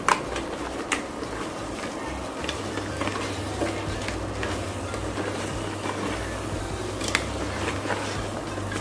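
A ladle stirring thick crab masala in an aluminium pressure cooker, with a few sharp knocks and scrapes against the pot over a low, even simmering sizzle. A low steady hum comes in a couple of seconds in.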